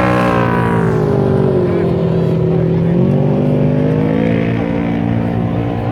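Off-road vehicle's engine working hard, its pitch falling over the first two seconds as the revs drop, then revving up again about three seconds in and holding.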